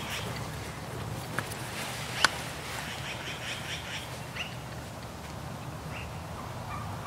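Wild turkey flock with gobblers in strut: a rapid chattering call a little over two and a half seconds in, a couple of sharp clicks just before it, and a few short chirps after, over a steady low hum.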